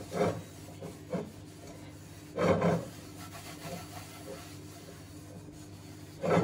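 Cloth rubbing over the bottom of an upturned Lodge cast iron skillet in a few short wiping strokes, the loudest about two and a half seconds in and another near the end, working in a thin even coat of seasoning.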